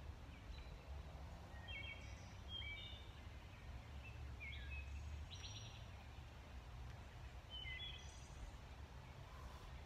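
Woodland birds singing short chirping phrases, one every second or two, over a steady low rumble.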